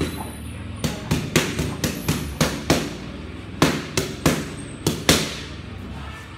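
Boxing gloves smacking focus mitts in fast combinations: about fourteen sharp slaps in quick groups of two to four. The last and loudest lands about five seconds in.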